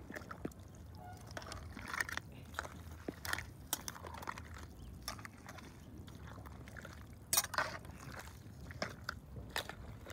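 A metal spatula stirring a large pot of whole shrimp, chopped vegetables and tomato broth: scattered clicks and scrapes of the utensil against the pot and the shrimp shells, with soft sloshing of the liquid. There is a louder scrape about seven seconds in.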